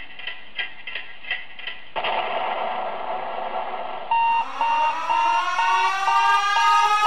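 Time-bomb sound effects: clock ticking about three times a second, then a hissing noise from about two seconds in. About four seconds in, a siren starts, rising slowly in pitch, with a steady fast electronic beeping alarm over it.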